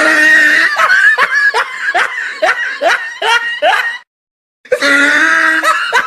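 High-pitched laughter: a held note breaking into rapid 'ha-ha' bursts, about two to three a second. It cuts off suddenly about four seconds in, then the same laugh starts over about half a second later.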